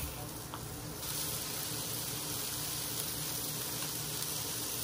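Trout strips sizzling on a hot Blackstone flat-top griddle, the sizzle growing louder and brighter about a second in as the fish goes on.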